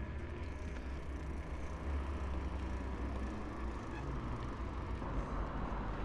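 Steady low rumble of wind on a chest-mounted action camera's microphone while cycling, with bicycle tyre noise and road traffic in the background.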